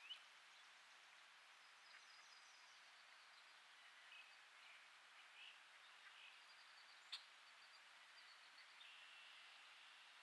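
Faint outdoor ambience: a steady low hiss with distant bird chirps and short trills scattered throughout, and a single sharp click about seven seconds in.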